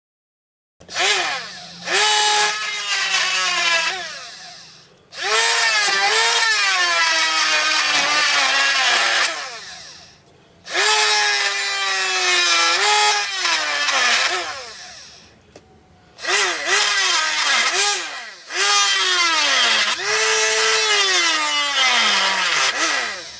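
Homemade 12 V DC-motor drill whining in about five separate runs of a few seconds each, its pitch sagging and dropping away as each run ends.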